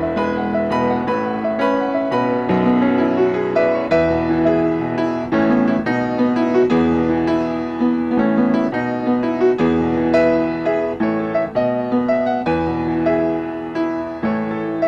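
Solo piano playing a steady stream of struck notes over held bass notes.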